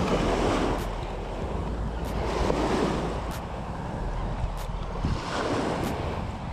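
Small waves washing against the shore in surges every two to three seconds, with wind buffeting the microphone.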